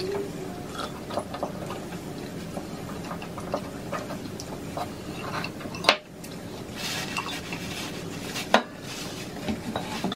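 Clatter of tableware and food handling at a mukbang table: many small clicks and taps, with two sharper knocks about six and eight and a half seconds in.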